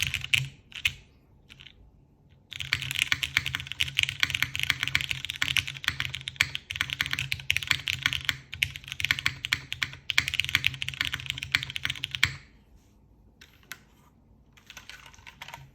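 Typing on an Avo Muse TKL mechanical keyboard with Cherry MX Brown switches and GMK keycaps: a few single keystrokes, then about ten seconds of fast, continuous typing. The typing stops, leaving scattered keystrokes and one short burst near the end.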